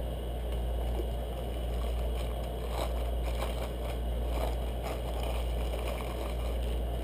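A steady low hum, with faint crinkling of clear plastic wrapping handled around a new piston in the middle of the stretch.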